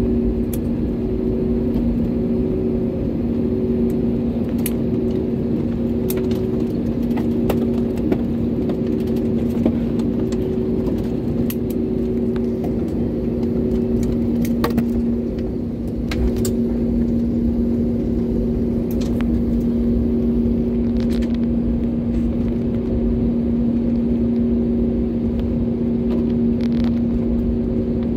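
Airbus A320-family airliner rolling on the ground after landing, heard from inside the cabin: a steady drone and rumble with a low hum, a second hum that pulses on and off about once a second, and scattered light clicks and knocks.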